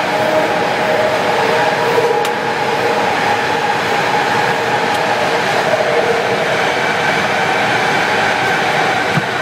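Subway train running, heard from inside the passenger car: a steady rushing noise of wheels and track with a whine running through it.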